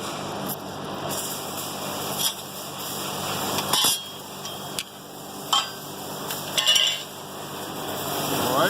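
Oxyacetylene torch burning with a neutral flame, hissing steadily, with scattered light metallic clinks and taps every second or so.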